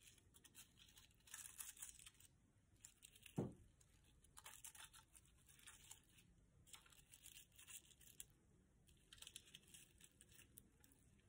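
Faint crackling and rustling of dried flowers and wax chips being handled and pressed into a candle mould, with one dull thump about three and a half seconds in.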